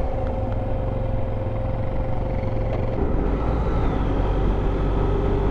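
Motorcycle engine running at road speed under a steady low drone of road and wind noise; about three seconds in the engine note changes to a lower pitch.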